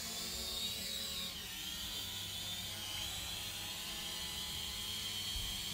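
Small quadcopter drone's motors and propellers whining in flight, heard close up from its own onboard camera, the pitch wavering slightly as the drone adjusts its speed.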